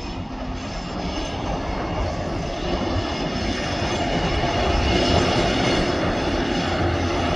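Diesel engine of TasRail DQ class locomotive 2006 hauling a freight train, a steady drone that grows gradually louder as it approaches.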